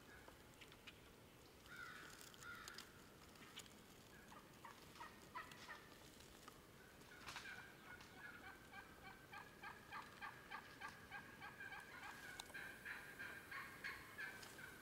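Faint calls from a flock of wild turkeys: a call about two seconds in, then from about seven seconds a long run of quick repeated notes, about three a second, over a held tone.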